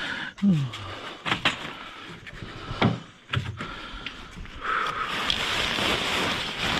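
Gear being handled: several separate knocks and thuds, like a door or lid being moved and bulky items set down, with a short falling creak about half a second in. Just before the end a steady rushing noise starts and keeps going.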